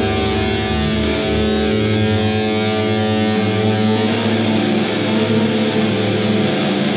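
Instrumental rock music: an electric guitar in drop D tuning, a Schecter Reaper played through Bias FX2 amp modelling, holding sustained chords, with the chord and texture changing about four seconds in.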